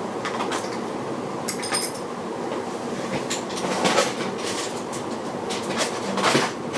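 Rummaging: small objects clattering and knocking as things are moved about in a search for a bottle of super glue, with scattered clicks and louder knocks about four and six seconds in.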